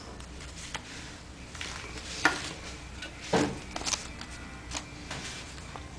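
Handling noise from a cellophane-wrapped box and a paper card: scattered sharp clicks and short crinkling rustles, the loudest a little past halfway.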